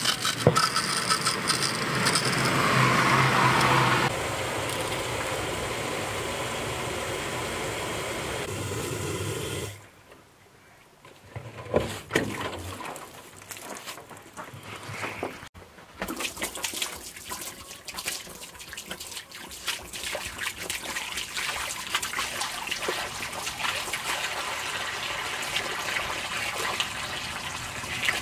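Hot water gushing from an outdoor spigot into a plastic water-cooler jug, a steady rush that eases after about four seconds. It cuts off sharply about ten seconds in as the spigot is shut, followed by a sharp knock a couple of seconds later.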